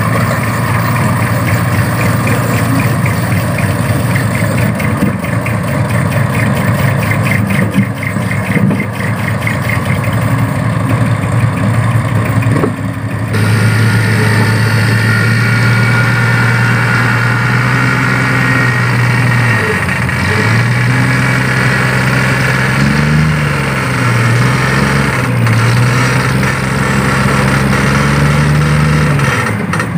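Dump truck's diesel engine running, with an abrupt change about thirteen seconds in to a steady raised engine note. Near the end the pitch dips and rises several times while the hydraulic hoist tips the loaded bed.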